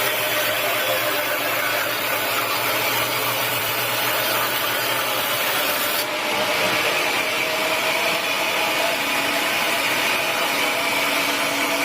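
Sawmill saw cutting through teak wood, a steady, continuous cutting noise whose tone shifts abruptly about halfway through.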